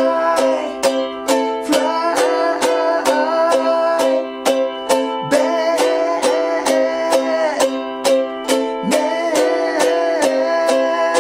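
G-Labo ukulele strummed in a steady rock rhythm, about three to four strokes a second, cycling through Am, G7 and C chords, with a man singing along loudly.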